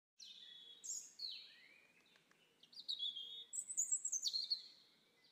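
Songbird singing: a string of clear, high whistled phrases, several gliding down in pitch, louder in the second half, over faint background hiss.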